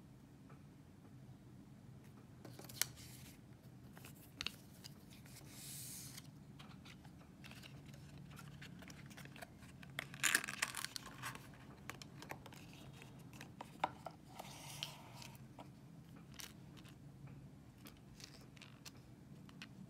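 Hands handling a paperboard box and its cardboard insert tray: scattered taps and clicks with short rustling scrapes of card, the loudest a cluster of rustles about ten seconds in, over a faint low hum.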